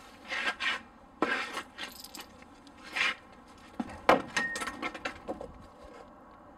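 A person climbing a wooden privacy fence: irregular scrapes, knocks and clothing rustle as gloved hands grab the top boards and the body is hauled up, with the sharpest knock about four seconds in.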